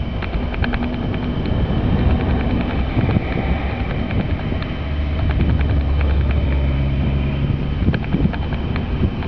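Peppercorn A1 three-cylinder steam locomotive running across a viaduct, heard from afar: its exhaust beats come as sharp chuffs in quick succession. About five seconds in, a low steady drone swells up beneath them.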